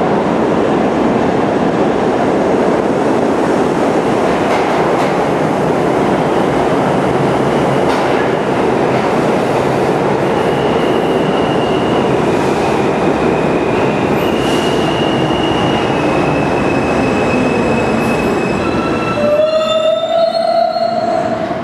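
New York City subway train running through the station with a steady rolling noise of wheels on rail, and high wheel squeals setting in about halfway through. Near the end the rolling noise falls away and several squealing tones rise in pitch as the train slows to a stop.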